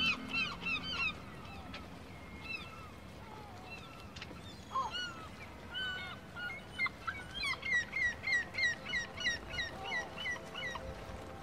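Birds calling in runs of short, sharp notes, about four a second, with a long run from around seven seconds in, over a faint steady background hiss.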